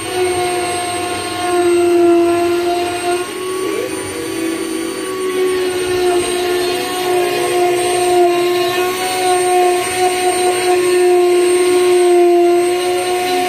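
Desktop CNC router with a rotary tool as its spindle, whining steadily as the bit engraves a logo into the end grain of a wooden log slice. The pitch wavers slightly as the cutter moves through the wood.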